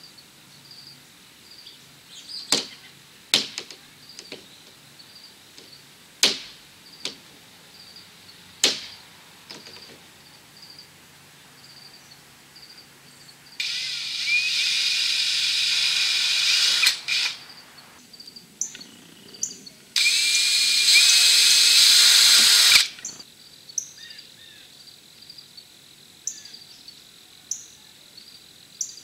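A power drill driving screws into PVC pipe braces, in two runs of about three seconds each, after a few sharp clicks and knocks. Crickets chirp faintly throughout.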